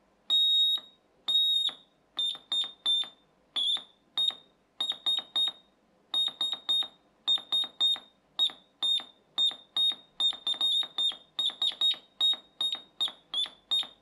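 A door-alarm piezo transducer, driven by a one-transistor Morse code oscillator, sounds a steady high tone that is keyed on and off in long and short beeps, two long ones first and then quicker dots and dashes. The tone chirps a little.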